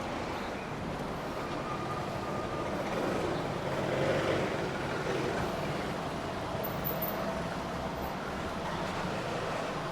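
Steady background traffic noise, an even rumble and hiss with no distinct events, swelling slightly about four seconds in.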